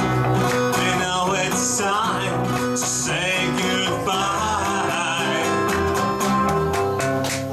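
Live band music in a passage without lyrics: acoustic guitar and electric guitar playing together over a steady low bass line.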